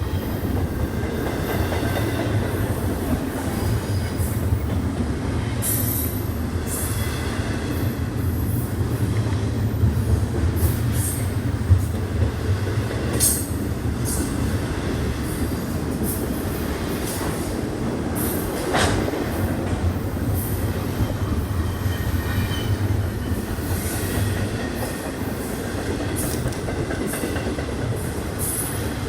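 A train rolling past with a steady low rumble. Short high-pitched wheel squeals and clicks from the rails come and go throughout.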